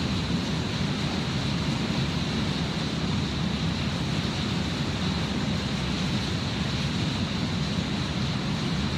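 Steady background noise: an even hiss over a low rumble, with no distinct events.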